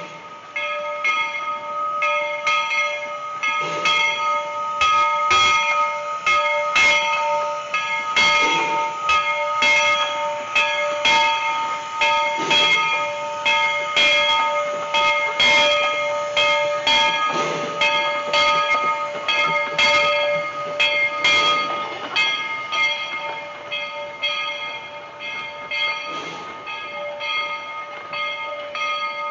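Narrow-gauge steam locomotive's bell ringing over and over, one stroke after another, as the train rolls past. Its tone hangs on between strokes, and the wheels clatter underneath.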